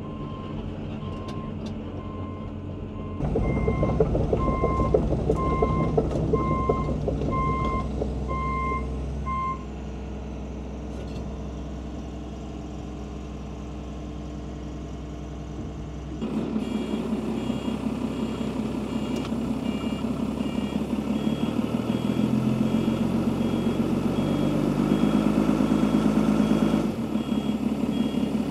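Diesel heavy-equipment engine running with a travel alarm beeping steadily, about one and a half beeps a second. After a stretch of engine alone, a higher-pitched backup alarm beeps while the engine revs up.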